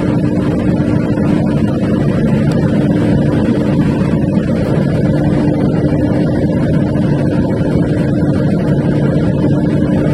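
Large Perkins diesel engine of a 1400 kVA generator set running at a steady speed, a loud, even drone with a strong constant hum.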